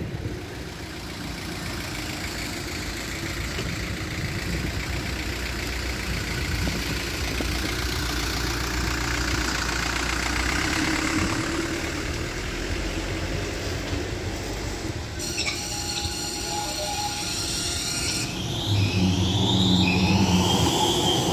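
Tram and street noise with a low rumble, then a Rotterdam RET low-floor tram running past close by near the end, its electric drive giving a rising whine.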